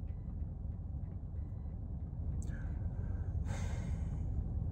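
Steady low rumble inside a car's cabin. About three and a half seconds in, a man takes a sharp breath through his nose, lasting about a second.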